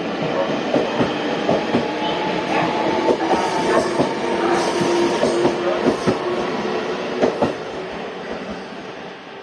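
Electric train running along a station track, its wheels clacking over the rail joints in quick irregular clicks, with a steady whine through the middle. The sound fades away over the last couple of seconds as the train moves off.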